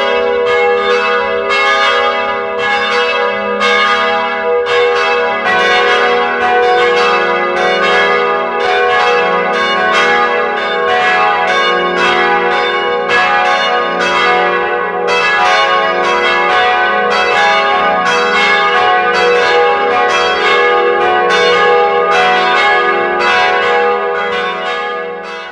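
Church bells ringing a continuous peal, struck about twice a second with each stroke ringing on into the next. The peal fades away at the very end.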